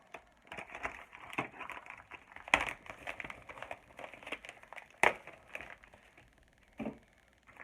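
Plastic bag crinkling and crackling as an air hose is pulled out of it, with two sharp cracks about two and a half and five seconds in.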